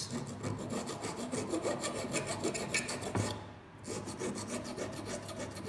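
Hand file drawn back and forth over the edge of a thin sheet-metal part clamped in a vise, a fast rasping run of strokes that takes the burrs off. There is a brief pause a little past halfway before the filing resumes.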